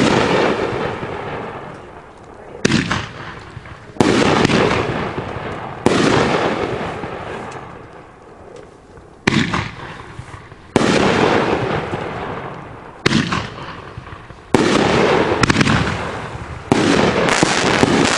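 A 500-gram, 12-shot consumer firework cake firing in sequence: about nine loud shots, roughly one every one to three seconds. Each shot's break is followed by a fading noisy tail from its white strobe effects.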